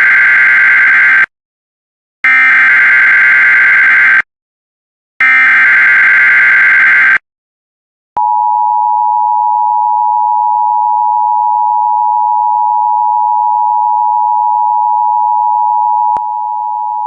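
Emergency Alert System signal for a severe thunderstorm warning: three loud two-second bursts of SAME header data, a harsh digital screech with about a second of silence between them, the first already under way. About eight seconds in, the steady EAS attention tone begins and holds, dipping slightly in level near the end.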